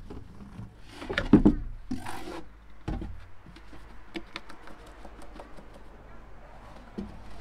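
Metal dust-collector bin being handled with the vacuum switched off: a few knocks about a second in and a short scrape around two seconds as it is lifted out of the wooden cart, a thump just after, then faint light ticks and rustles as it is tilted.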